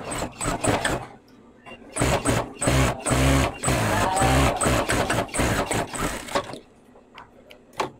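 Industrial lockstitch sewing machine stitching a seam in jeans. It runs in a series of short spurts from about two seconds in until shortly before the end, after a few clicks near the start.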